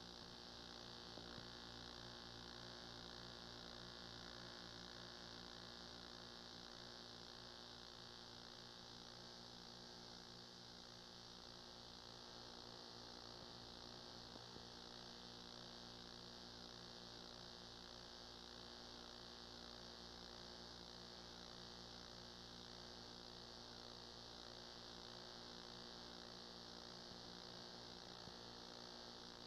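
Near silence: a steady electrical mains hum with a faint hiss, unchanging throughout.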